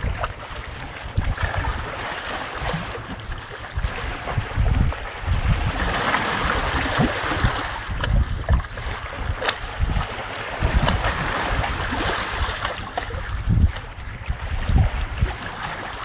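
Shallow stream water splashing and trickling as a puppy wades through it. Gusts of wind buffet the microphone on and off.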